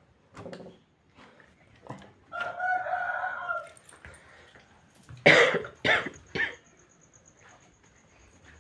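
A rooster crows once, one long call of about a second and a half, and a few seconds later a person coughs three times in quick succession, the coughs being the loudest sounds.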